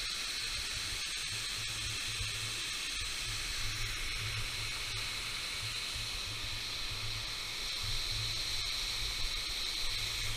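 Steady rushing hiss of a small waterfall cascading over rock, with a low, uneven rumble underneath.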